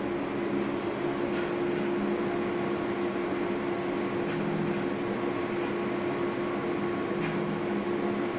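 Large-format flex banner printer running: a steady machine hum with a constant low tone, and a few faint ticks as the print-head carriage travels along its rail.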